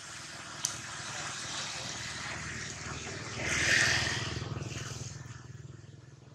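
A motor vehicle passing by: its engine and road noise grow louder, peak a little past the middle, then fade away. A single sharp click comes in under a second in.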